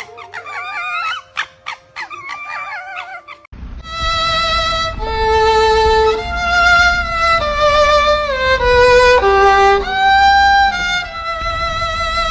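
Violin playing a slow melody of long held notes that step up and down in pitch, starting about three and a half seconds in. Before it come short, wavering high cries with a few clicks.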